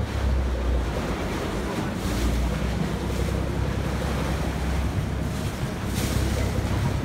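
Canal commuter boat docking: its engine rumbles low and steady under the noise of water churning at the stern, with a brief louder rush of water about six seconds in.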